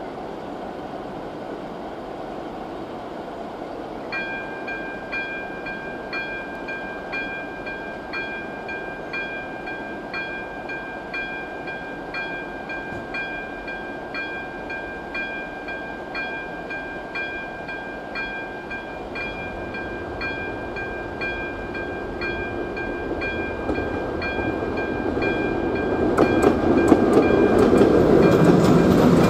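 ZV02 electronic crossing bell starts about four seconds in, a steady ringing tone with evenly repeating strikes, as the crossing warning activates. A freight train approaches under it, its rumble growing steadily and turning loud near the end, with wheels clicking over the rail joints.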